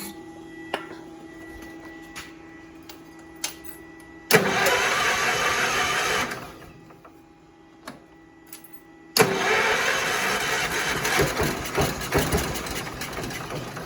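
Allis Chalmers tractor's Kohler engine cranked by its starter twice, a short crank of about two seconds and then a longer one of about four seconds, turning over on carb spray without catching. The engine is nearly firing but not starting after a head gasket replacement.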